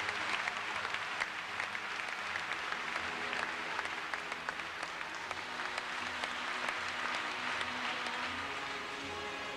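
A large audience applauding, with music playing faintly underneath.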